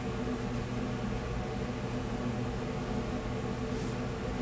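Steady hum and fan whir of running commercial kitchen equipment, with a low buzzing tone over an even hiss.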